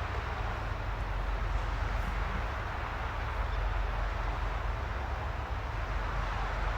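Steady rushing noise with a constant low rumble underneath, unchanging throughout.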